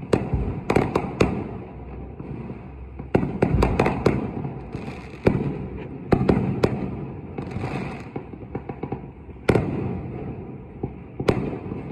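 Aerial fireworks going off, heard through a window: a steady run of sharp bangs and crackling pops, some coming in quick clusters, over a continuous low rumble of more distant explosions.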